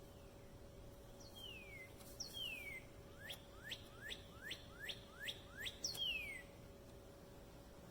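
A songbird singing: a few slurred notes falling in pitch, then a quick run of about seven rising notes, about three a second, then one more falling note. A faint steady hum runs underneath.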